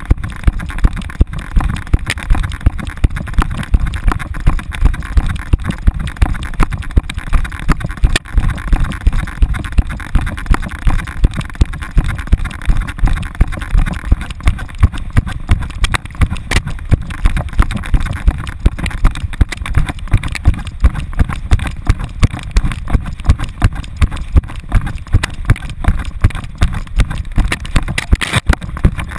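Rhythmic thumping and jostling of a camera harnessed to a running dog, about two or three knocks a second with each stride, over a steady rush of wind noise.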